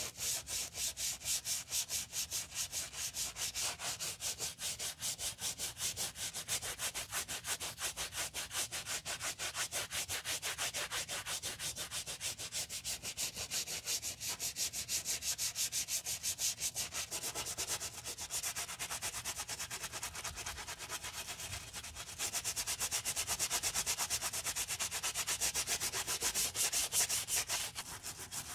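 Stiff-bristled wooden brush scrubbing a soapy, foam-covered sneaker's rubber sole in rapid back-and-forth strokes, about four a second. The scrubbing gets louder for the last several seconds.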